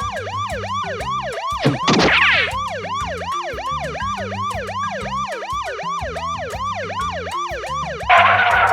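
Emergency-vehicle siren in a fast yelp, rising sweeps repeating about three times a second, over background music with a steady beat. A brief noisy whoosh comes about two seconds in and a louder one near the end.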